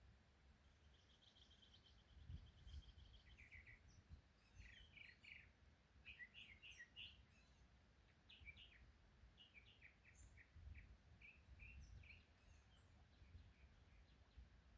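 Faint birdsong: one held high whistle about a second in, followed by a long run of short, quick chirps, over a low rumble.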